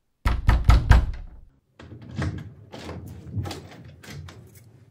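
Radio-drama sound effect of someone pounding on a door: a quick run of about five heavy thuds in the first second and a half, then lighter, irregular knocks and thumps.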